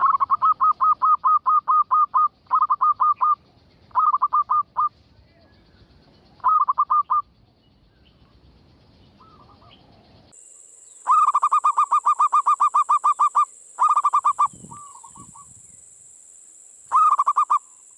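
Zebra dove (perkutut) singing its cooing song: bursts of rapid staccato notes, about five a second, in roughly eight runs of one to two seconds with pauses between. A steady high hiss joins about ten seconds in.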